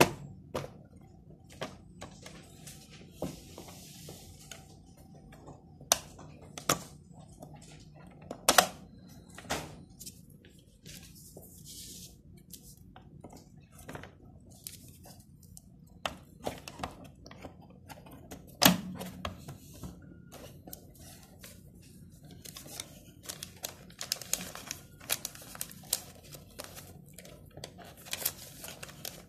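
Plastic clicks and knocks from a GoDEX DT2x label printer's cover and parts as it is opened and a paper roll is loaded, with a sharp latch click at the start and a few louder knocks. Paper and wrapping rustle and crinkle between the knocks, more busily near the end as the roll is seated.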